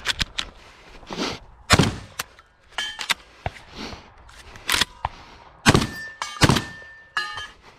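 Shotgun firing: four loud shots, the first about two seconds in and three more in quick succession in the second half, with lighter clicks and clatter of the gun's handling between them and a brief ringing tone lingering after the later shots.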